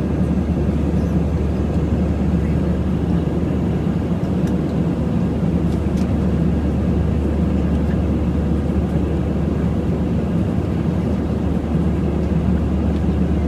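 Steady low roar of an airliner in flight, heard from inside the passenger cabin: engine and airflow noise, even and unchanging throughout.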